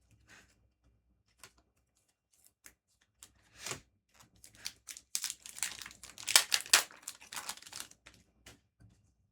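Trading card booster pack wrapper being torn open and crinkled by hand, with scattered crackles building to a loud run of crinkling about five to eight seconds in.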